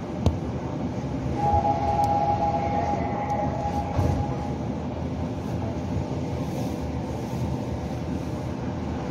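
Subway train standing at a station platform, its steady hum and rumble heard inside the car. A steady electronic tone sounds from about a second and a half in for about two and a half seconds while the doors are open.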